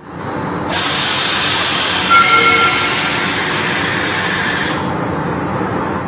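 A steady rushing hiss that fades in, brightens for about four seconds and then dies away, with a brief faint two-note tone about two seconds in: a train-like whoosh sound effect under the EH500 title card.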